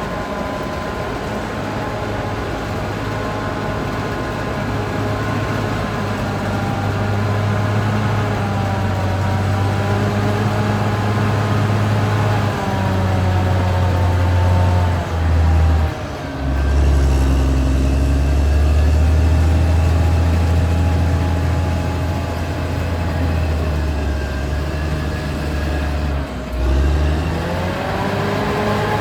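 Caterpillar D6R XL bulldozer's diesel engine working under load, with a deep steady drone whose pitch rises and falls as the load changes. It dips briefly twice, about halfway through and near the end, before picking up again.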